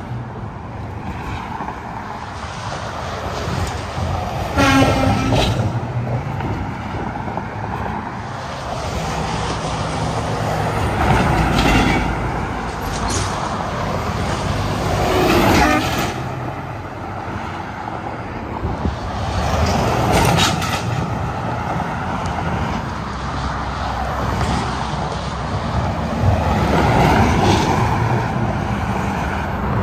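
Interstate traffic with heavy trucks passing one after another, each a rush of tyres and engine that swells and fades. A short horn blast sounds about five seconds in.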